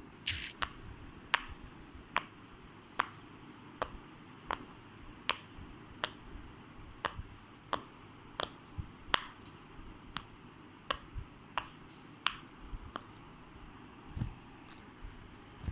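Silicone bubbles of a pop it fidget toy being pressed through one at a time. Each gives a short sharp pop, about twenty in all, at an uneven pace of roughly one to one and a half a second.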